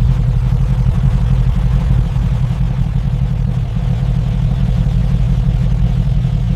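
Mercedes G63 AMG's twin-turbo V8 engine running steadily with a low rumble, holding an even speed without revving.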